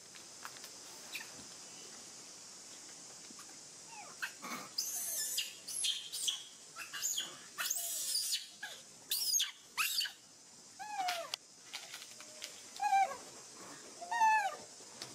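Young macaque screaming: a fast run of shrill squeals starts about four seconds in. It ends in a few shorter, lower calls that arch up and fall in pitch. These are the distress calls of an upset young monkey.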